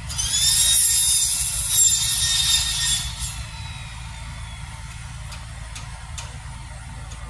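A loud, high-pitched mechanical squeal with several tones starts at once and fades after about three seconds, over the steady low running of a boom truck's engine. A few sharp ticks follow.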